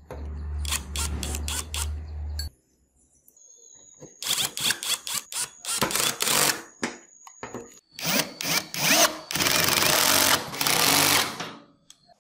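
Metalworking tool noise: a low steady hum for about two and a half seconds, then, after a short pause, stop-start bursts of loud crackling hiss, the longest lasting about two seconds near the end.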